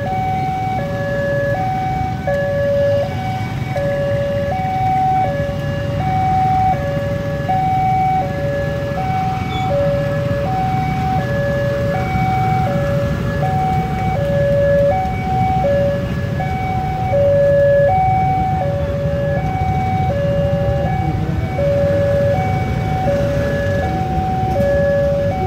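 Railway level-crossing warning alarm sounding from the signal's loudspeaker: an electronic two-tone, high and low notes taking turns under a second each, repeating without a break. It is the warning that a train is due and the barrier is down. A low, steady rumble of idling motorcycle traffic runs under it.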